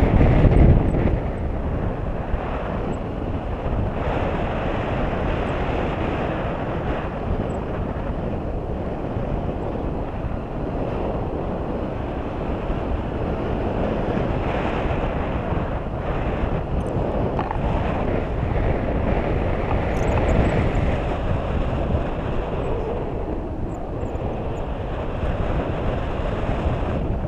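Wind rushing over an action camera's microphone in a tandem paraglider's flight: a loud, steady rushing noise, heavier in the first second.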